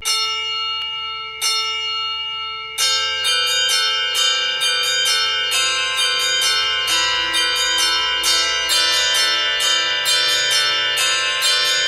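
Bells being rung: three single strikes a little over a second apart, then quick strikes on several different pitches, about two to three a second, each ringing on into the next like a simple tune.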